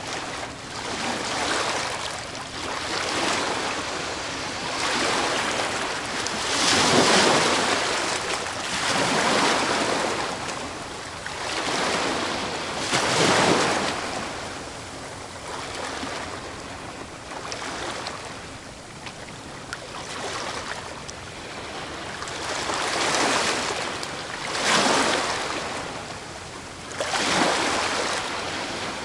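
Ocean waves breaking on a beach, a steady hiss of surf that swells into louder crashes every few seconds, the biggest about seven and thirteen seconds in and again near the end.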